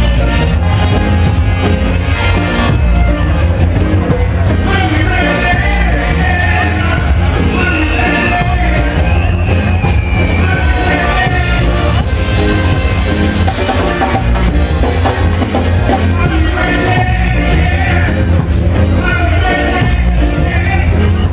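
Reggae song with a male vocal over a heavy bass line, played loud through a street sound system.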